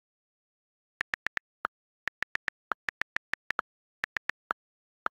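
iPhone on-screen keyboard key clicks: quick, irregular taps of someone typing, starting about a second in, with a few lower-pitched clicks mixed in among the letter taps.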